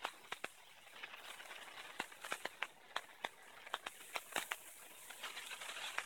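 Firecrackers popping: scattered sharp cracks at an irregular pace, a dozen or more, over a faint hiss.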